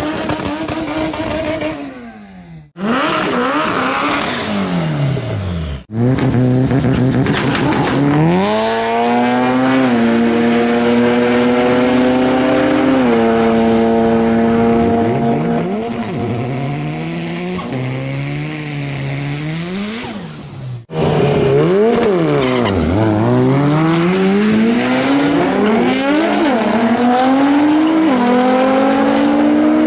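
Drag cars launching and accelerating hard down the strip: high-revving engines climbing in pitch and dropping back at each gear change, with tire squeal. In the last part two engines run together, their pitches crossing.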